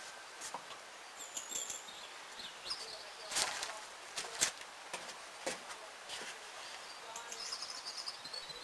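Small birds chirping in outdoor ambience, broken by several sharp clicks or knocks, the loudest about three and a half and four and a half seconds in.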